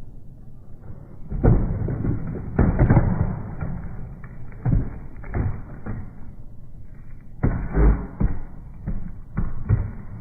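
A series of irregular dull thuds and knocks, heaviest in a cluster about two seconds in and again near the end.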